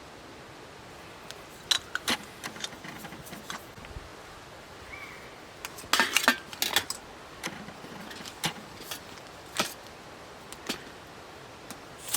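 Metal camping cook gear being handled: scattered sharp clicks and clinks, with a cluster about six seconds in, as a small gas stove and pot are set up.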